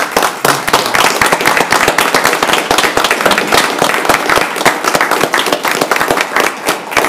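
Applause from a small group: many hands clapping quickly and steadily.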